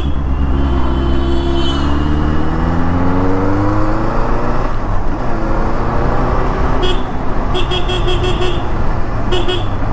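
Benelli 600i's inline-four engine pulling under throttle from the rider's seat, its pitch rising for about four seconds, dropping, then climbing again. From about seven seconds in, a high-pitched horn beeps in quick short pulses.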